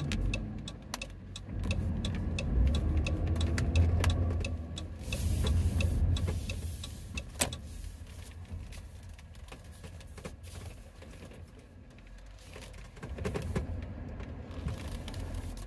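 Cabin noise of a 2018 Dodge Grand Caravan driving: engine and road rumble that eases off in the second half as the van slows to park. A regular ticking, several clicks a second, stops about a second and a half in, typical of a turn-signal indicator.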